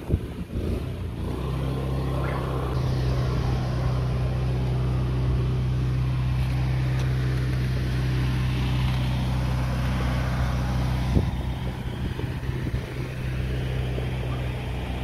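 Small engine running at a steady speed, a low even hum with a hiss above it that sets in about a second and a half in. A single short knock near the end.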